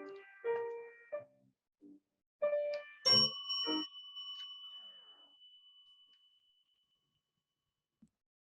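A few short pitched notes, then a bright bell-like ding about three seconds in that rings on and fades away over several seconds.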